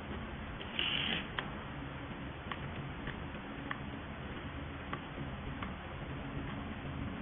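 Steady room hum and hiss of an assembly workshop, with scattered light clicks from small parts being handled and a brief hiss about a second in.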